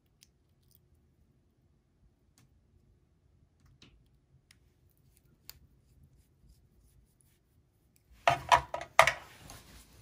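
Faint, scattered ticks of a small precision screwdriver turning tiny screws into a black aluminium M.2 SSD heatsink. Near the end comes a brief loud clatter of several knocks and rustling as the heatsink and screwdriver are handled and set down.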